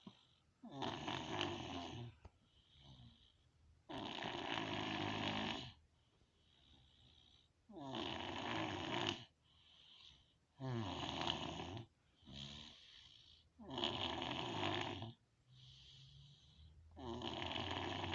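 A man snoring heavily and rhythmically: six loud, rasping snores about three seconds apart, with quieter breaths between them.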